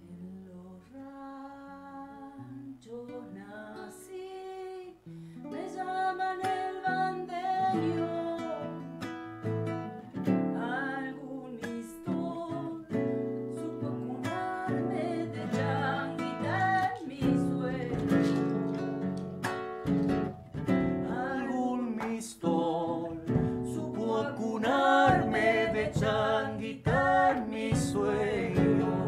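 Argentine folk song performed live: an acoustic guitar picks softly, then about six seconds in a woman starts singing over it and the music grows louder.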